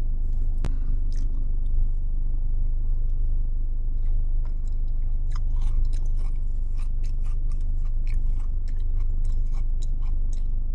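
Close-up chewing and wet mouth smacks and clicks of someone eating caramel ice cream with Biscoff biscuit pieces, growing busier about halfway through, over a steady low hum.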